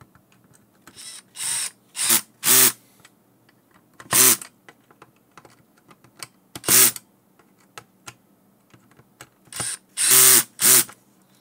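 Cordless drill-driver running in about nine short bursts, each under half a second, as it drives small screws into a plastic motor-controller housing. Its clutch is on a low setting so it doesn't strip the small, weak screws.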